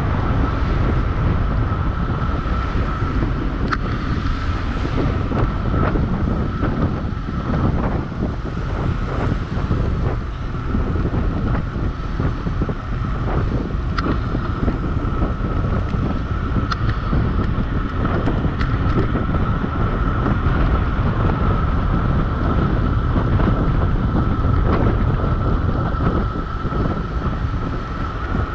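Wind buffeting the microphone on a fast downhill ride: a steady low rumbling rush, with a thin steady high whine over it.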